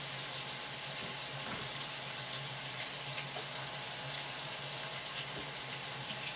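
Ground beef and bacon sizzling steadily as they fry in a pot on the stove.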